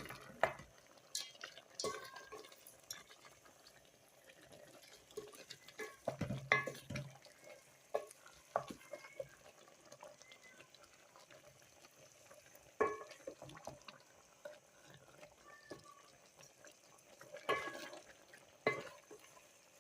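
A cooking utensil stirring, scraping and knocking in a pot, in irregular clatters with pauses between them; the loudest is a heavier knock about six and a half seconds in.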